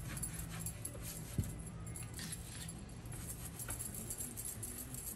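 Round wax brush scrubbing white wax into a stained timber board: faint, irregular scratchy bristle strokes over a steady low hum, with one small knock about a second and a half in.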